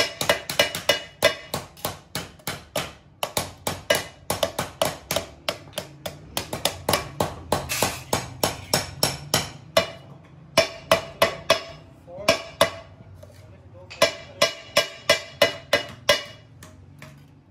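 Wooden mallets beating thin sheet steel over steel stakes to shape conical ice cream molds: quick, ringing metallic strikes, about three or four a second from two workers hammering at once, with brief lulls around the middle.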